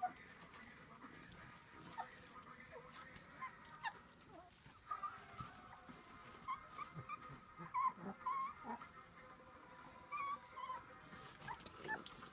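Puppies whimpering and squeaking: many short, faint, high squeals scattered through, with a few light clicks.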